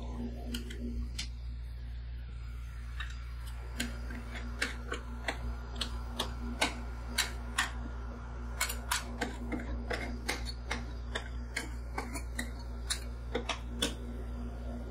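Steel spatula scrapers tapping and scraping on a steel rolled-ice-cream cold plate as a sheet of frozen cookie ice cream is smoothed and scored into strips. The clicks are sharp and irregular, few at first and much busier from about four seconds in, over a steady low hum.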